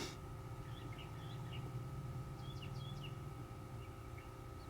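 Small birds chirping: a few short, high chirps about a second in and a few more about two and a half seconds in, over a steady faint hum.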